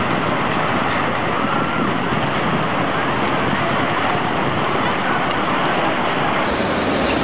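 Steady rushing roar of tsunami floodwater surging through a town and carrying debris. About six and a half seconds in it changes abruptly to a brighter, fuller rush of water.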